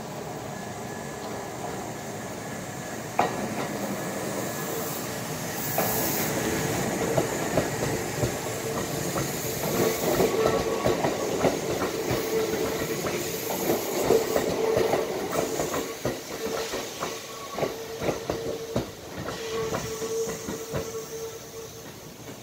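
Kintetsu 1000 series electric train pulling away and running past, with a steady hum under many quick clicks of the wheels over rail joints and points. A sharp knock comes about three seconds in, and the train is loudest in the middle as it passes before fading near the end.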